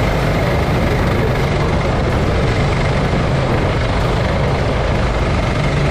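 Racing go-kart's engine running steadily at speed, heard from the kart's own onboard camera.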